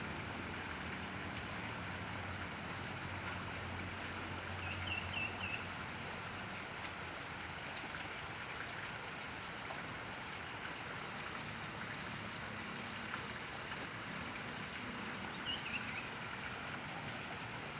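Steady rush of river water flowing. Short high chirps are heard twice, about five seconds in and again about fifteen seconds in.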